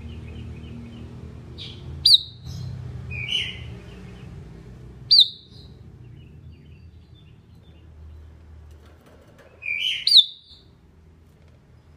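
Sooty-headed bulbul calling: three loud, sharp notes about two, five and ten seconds in, the first and last each joined by a lower burbling phrase, with a few soft chirps at the start. A low steady hum runs underneath.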